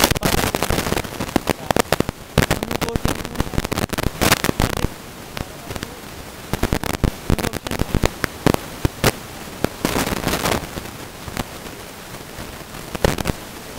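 Irregular crackling and sharp pops, dense for the first few seconds and then thinning out, with a short flurry about ten seconds in and a few louder pops near the end.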